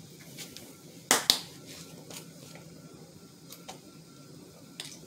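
Sharp clicks and light taps of a kitchen container and utensils being handled, with two loud clicks in quick succession about a second in and a few fainter ticks after.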